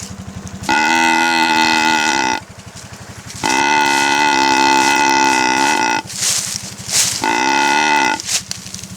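Horn honked three times in long, steady blasts, the second the longest, over the Gator utility vehicle's engine running underneath.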